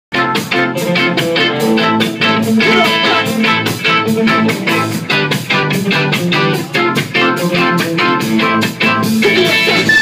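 Ska band playing live: electric guitar, bass and drum kit in a quick, steady rhythm, with held keyboard-like tones coming in near the end.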